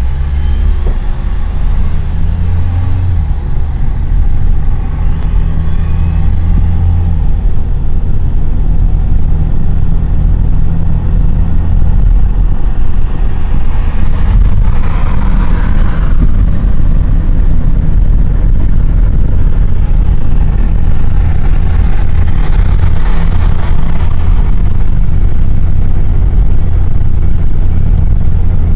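Car engine and road rumble heard from inside the moving vehicle. A steady low engine hum is plain for the first several seconds, then becomes a noisier rumble, with two brief swells of higher noise around the middle and near the end.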